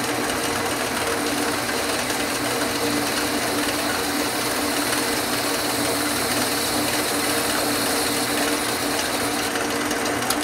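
Atlas metal lathe running steadily, its spindle turning while the tool takes a light cleanup facing cut on the end of the part. A steady hum with a few fixed tones; a faint high whine drops out near the end.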